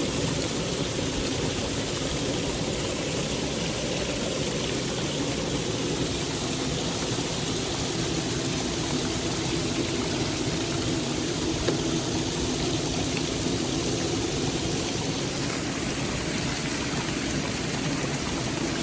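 Waterfall water rushing in a steady, unbroken wash.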